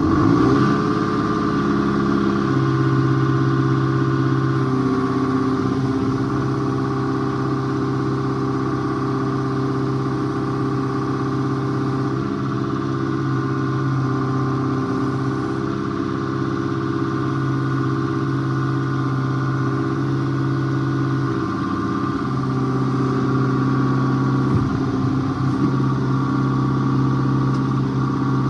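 Tractor engine running steadily, its note shifting slightly a couple of times.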